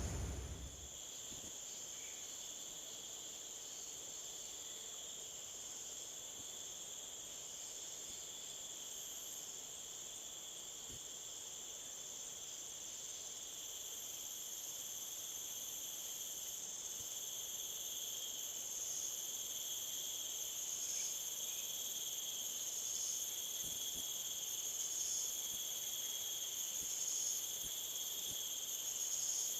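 Insects chirring steadily in high, unbroken tones, joined about halfway through by a still higher pulsing call that repeats roughly once a second.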